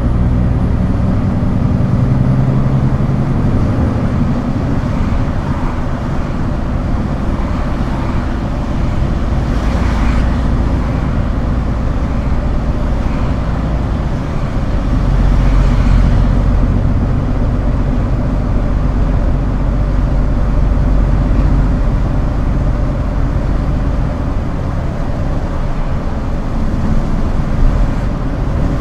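Scania R410 truck's diesel engine running steadily, with two brief hissing sounds about ten and sixteen seconds in.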